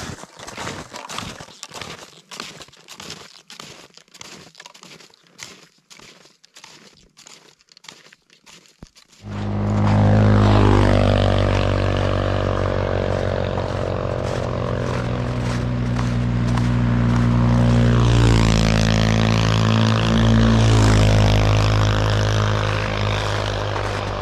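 Snowshoe footsteps crunching on packed snow, about two steps a second. About nine seconds in, a snowmobile engine starts up loud and runs on to the end, its pitch dipping and rising as the throttle changes.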